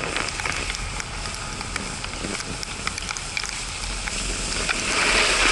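Snowboard sliding over snow: a rough, steady scraping hiss with many small clicks, mixed with wind rushing over the action camera's microphone. It grows louder near the end.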